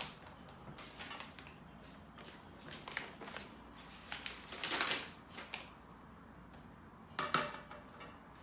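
Small objects being handled: a string of light clatters, knocks and rustles, with a longer rustle about five seconds in and the loudest, briefly ringing clatter about seven seconds in.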